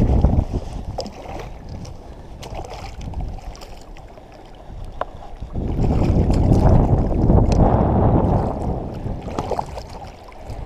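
Choppy water sloshing and lapping right against a wader's body close to the microphone, mixed with wind buffeting, swelling louder about halfway through and easing near the end.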